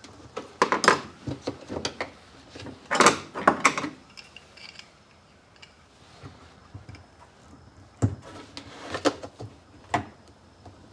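Pliers clicking and scraping on a metal hose clamp as it is worked off a washing machine hose, in three short clusters of sharp metallic clicks and knocks with quieter fiddling between.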